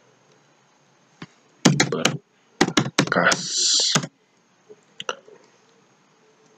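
Computer keyboard keys pressed close to the microphone as text is deleted: a few clicks and short loud knocks between about two and four seconds in, the last ending in a hiss of under a second, with faint ticks about a second later.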